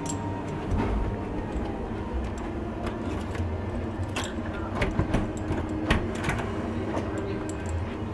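Cabin door keycard lock and handle being worked: several sharp clicks and rattles, clustered from about four to six seconds in, over a steady low hum.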